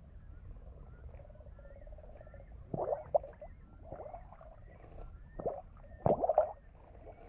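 Shallow water sloshing and gurgling around a half-submerged camera, with bubbles, over a low steady rumble. Short gurgles come about three seconds in and again near the end, the loudest around six seconds.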